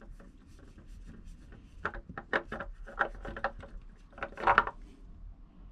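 Oil filter being spun off by hand and eased out: a run of short scraping and rubbing handling noises, with the loudest scrape about four and a half seconds in.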